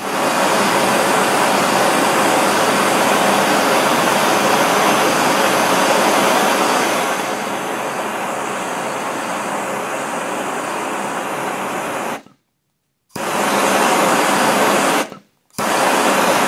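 Handheld gas torch flame hissing steadily as it heats a jammed 3D-printer nozzle tube to burn out the plastic inside. It starts abruptly, cuts off about twelve seconds in, then comes back twice in short bursts of about two seconds each.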